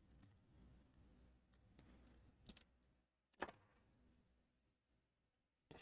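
Near silence with a few faint, short clicks of small parts and tools being handled, the loudest about halfway through.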